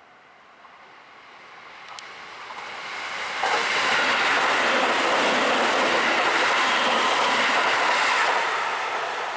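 A train passing by on the tracks: the rumble of wheels on rail builds over a couple of seconds, stays loud for about five seconds, then begins to fade near the end.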